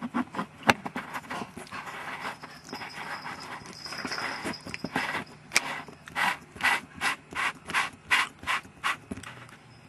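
Hand rubbing and knocking on a camera's fisheye lens, picked up close on the camera's own microphone as handling noise. Scattered clicks at first, then, about halfway through, a run of even rasping strokes, about two or three a second, that stops near the end.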